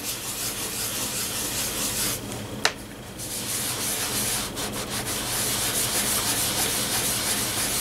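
Fingertips rubbing damp paper backing off an image transfer on a painted coaster, a steady scrubbing worked in circles to roll the paper away in bits. A short lull with one light click comes about two and a half seconds in.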